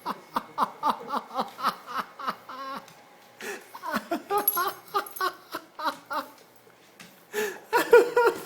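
A person laughing hard in three runs of quick, rhythmic bursts, with short breaks between them.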